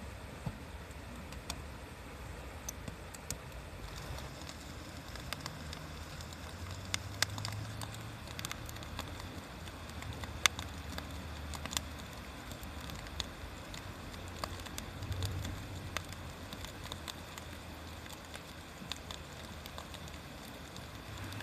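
Wood campfire burning, crackling with scattered sharp pops, the loudest about seven and ten seconds in, over a steady low rumble.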